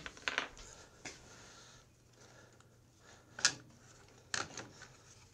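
A few light clicks and knocks of hands handling parts at the carburetor and air-cleaner mount of a Honda GX140 engine, with the loudest tap about three and a half seconds in.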